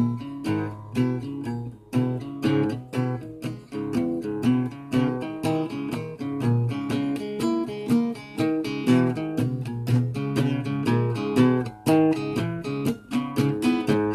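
Solo guitar playing a steady run of picked notes and chords, several notes a second.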